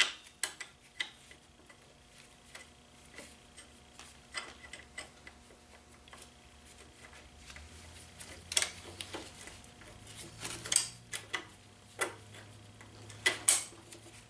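Light metallic clicks and clinks at irregular intervals as a bolt is fitted by hand through the rear brake bar of a Honda CT70, with a few sharper clinks in the second half.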